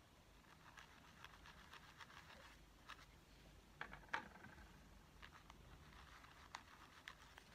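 Near silence broken by faint scattered clicks and scratchy rustles of hands handling a satin-ribbon craft flower and dabbing it with a cotton swab, with two sharper taps about four seconds in.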